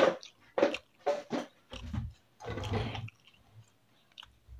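Close-miked chewing of a mouthful of fried chicken and rice: a run of loud, wet chewing sounds in the first three seconds, then only faint mouth clicks.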